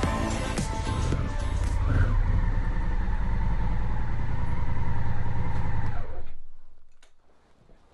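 Motorcycle on the road: steady engine and wind rumble, which fades out about six seconds in.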